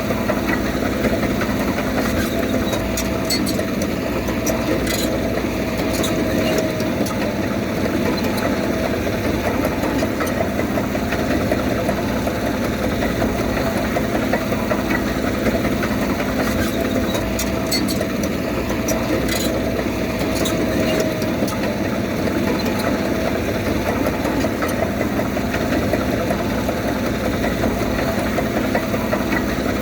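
Komatsu D31P bulldozer's diesel engine running steadily at work, its pitch rising slightly twice under load. Brief clusters of sharp metallic clanks come about three to six seconds in and again around twenty seconds in.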